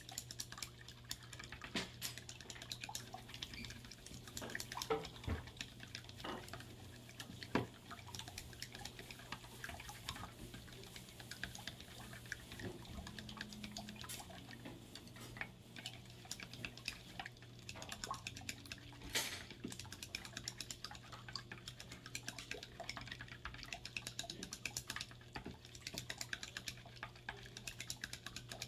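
Raw eggs being beaten with chopsticks in a ceramic bowl, dragged in a zigzag along the bottom: rapid, continuous clicking and tapping of the chopsticks on the bowl with the wet slosh of the egg, and a few louder knocks.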